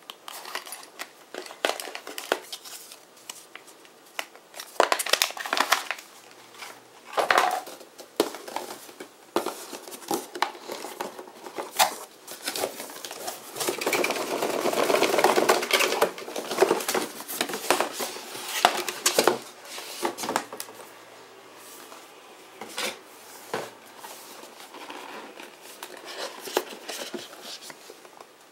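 Cardboard boxes and paper packaging being handled and opened by hand: rustling and crinkling, with scattered light knocks and clicks as lids and boxes are moved. The rustling is longer and louder for a couple of seconds about halfway through.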